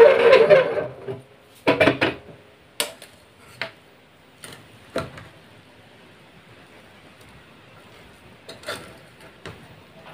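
A steel spoon clinking and scraping against the inside of a metal pressure cooker as cooked biryani rice is stirred and fluffed. It gives a run of sharp knocks over the first five seconds, then a pause, then a few more near the end.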